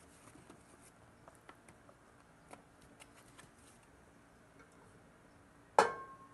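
Faint clicks and pattering as cubed food is scooped from a plastic cup with a spatula into a foam takeout container, then one sharp knock near the end with a brief ring.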